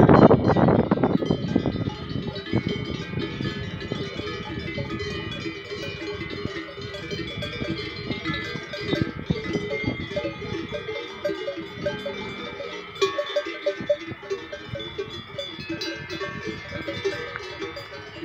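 Many cowbells clanking and ringing irregularly on a herd of brown cattle as they graze and walk. A loud low rumble sounds in the first second or two.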